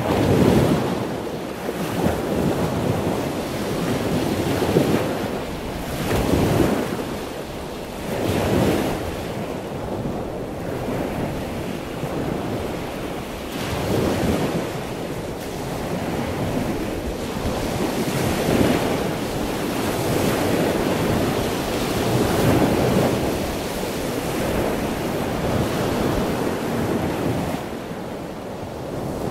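Wind buffeting the microphone over a choppy sea, with waves washing and slapping; the rushing noise swells and falls unevenly every couple of seconds.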